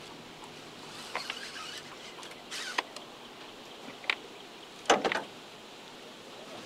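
Fishing reel clicking and ratcheting in short spells while a hard-pulling striped bass is played on the rod, over a steady background hiss. The loudest burst comes about five seconds in.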